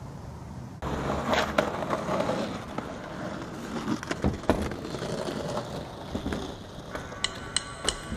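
Skateboard on a plywood bank: wheels rolling and the board knocking against the wood, with a quick run of sharp clicks near the end.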